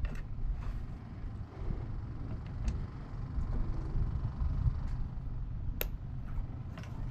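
Steady low rumble of wind on the microphone and water around the kayak, with a few small clicks from the baitcasting reel being handled, the sharpest about six seconds in.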